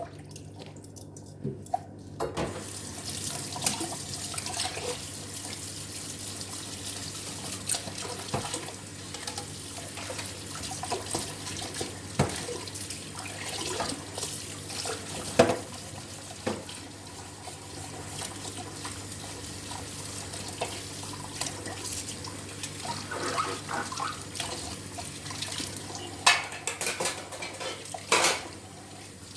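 Tap water running into a sink, starting about two seconds in, while dishes are washed by hand, with frequent clinks and knocks of dishes and utensils.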